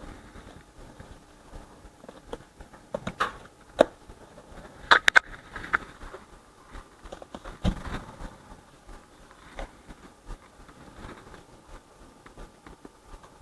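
Clear plastic deli-cup lid being prised off and handled by hand: a handful of sharp plastic clicks and snaps, the loudest two close together about five seconds in, with faint rustling of fingers on the cup between them.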